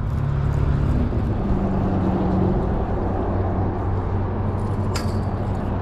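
An engine running steadily: an even, low hum that holds its pitch, with a faint click about five seconds in.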